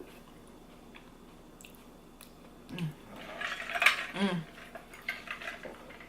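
Eating noises close to the microphone: about three seconds in, a brief low voice sound, then a second or so of cutlery clatter and chewing with another short voice sound in the middle, and a few small clicks after.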